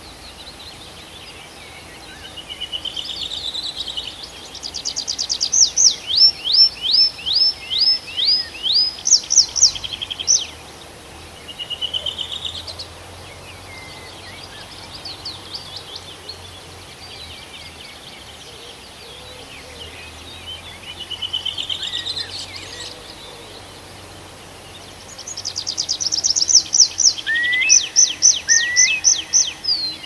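A songbird singing loud phrases: each opens with a short warble, then runs into a string of repeated, sharply falling whistled notes at about two a second. One phrase comes early and another near the end, with softer snatches of song in between.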